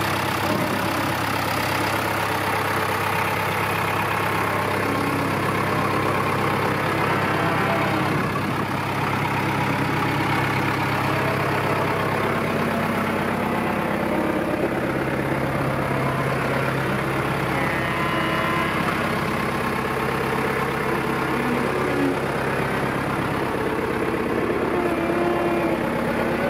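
1983 John Deere 2040S tractor's diesel engine idling steadily.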